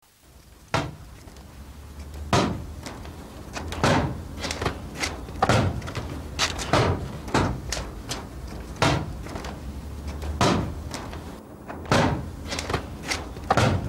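A series of sharp impacts, more than a dozen, at irregular intervals over a steady low hum.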